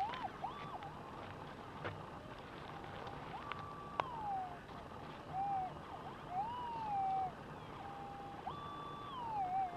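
Metal detector's audio signal as the large search coil sweeps over a dug hole: a steady tone that repeatedly swells up in pitch and falls back with each pass, a target response that seems to come from deep down. A sharp click about four seconds in.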